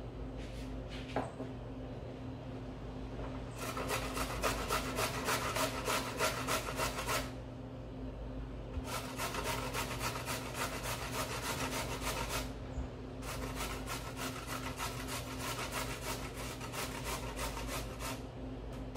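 A carrot being grated on a metal box grater: quick, even rasping strokes in three runs, with short pauses between them.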